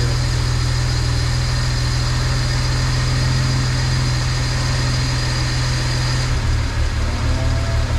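BMW N54 twin-turbo inline-six idling steadily soon after its first start on newly fitted upgraded turbochargers. A thin high steady whine stops about six seconds in, and the idle note turns a little less even after it.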